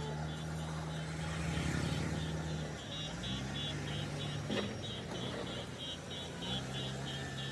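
JCB backhoe loader diesel engine running steadily. Its pitch rises about three seconds in as it revs up and drops again near the end. Over it comes a rapid high-pitched beeping of several beeps a second, with one sharp knock about halfway through.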